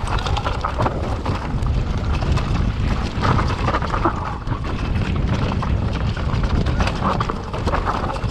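Mountain bike descending a rough trail: steady wind rush on the helmet camera's microphone under a constant clatter of the bike and tyres over rough ground, with many small knocks.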